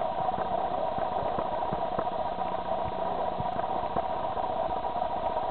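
A steady machine hum, with scattered light taps and knocks.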